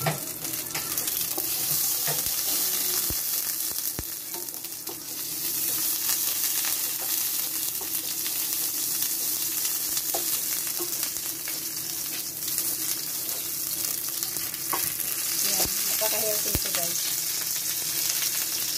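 Butter sizzling and bubbling as it melts in a nonstick pan, stirred with a wooden spatula. The spatula gives a few light taps and scrapes against the pan.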